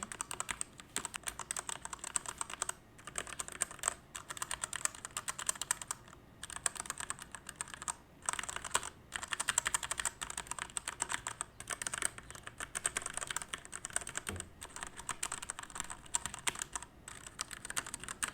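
Typing on a Royal Kludge RK68 Pro 65% mechanical keyboard with RK red linear switches: fast runs of keystrokes broken by short pauses every few seconds.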